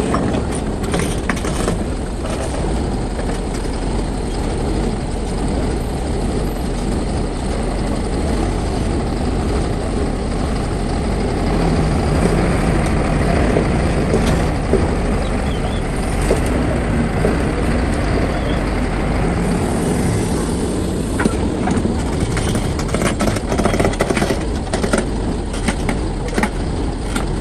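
Heavy diesel earthmoving machinery running steadily as an excavator loads a dump truck, with scattered knocks and clatters, most of them in the last third.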